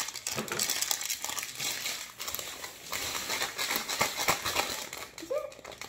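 Plastic toy packaging crinkling and rustling as it is handled and opened, an irregular run of crackles with no let-up.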